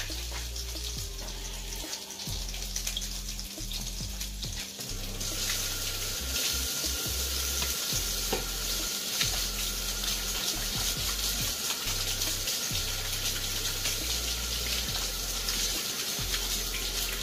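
Ribeye steaks frying in a pan, a steady sizzle that grows louder about five seconds in, with background music underneath.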